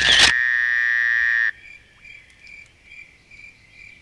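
A loud, steady buzzing tone starts with a click, lasts about a second and a half and cuts off abruptly. After it come faint insect chirps, evenly repeated about twice a second.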